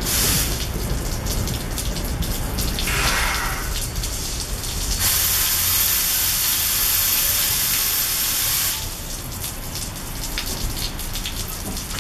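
A New Jersey Transit commuter train's coaches roll slowly to a stop in steady rain, with many small clicks. A loud, even hiss starts suddenly about five seconds in and cuts off nearly four seconds later.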